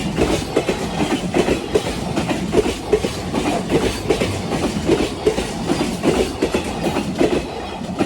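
Freight train wagons rolling past at speed, their wheels clacking over the rail joints in a fast, steady rhythm.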